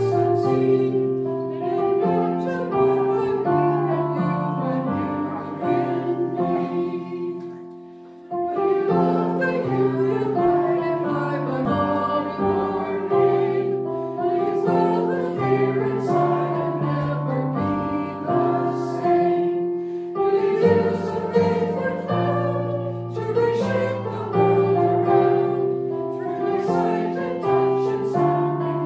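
A small congregation singing a hymn with instrumental accompaniment, in slow held chords. The music drops away briefly about eight seconds in, then the next line starts.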